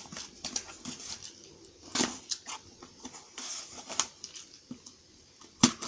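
Handling noises: soft rustling and scattered light clicks, with a few sharper taps about two and four seconds in and a louder click near the end.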